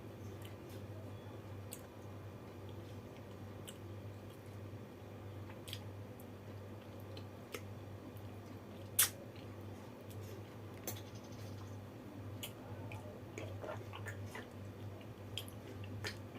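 A person eating a meal, with chewing and small mouth clicks and smacks scattered throughout and one sharper click about nine seconds in, over a steady low hum.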